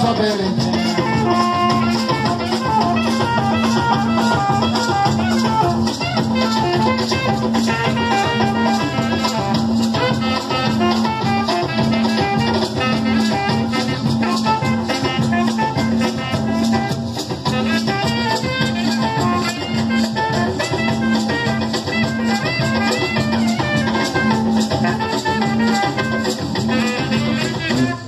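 Live carimbó music: curimbó hand drums beating a steady, even rhythm under shaken maracas and plucked strings carrying the melody.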